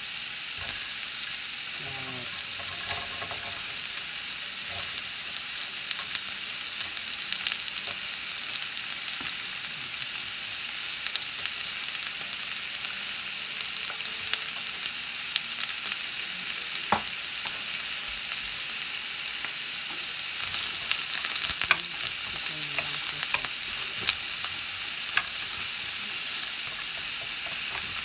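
Onion, carrots and snap peas sizzling in hot olive oil in a stainless steel frying pan: a steady frying hiss throughout. Scattered sharp clicks and taps come from pieces dropping into the pan and a metal spoon stirring against it.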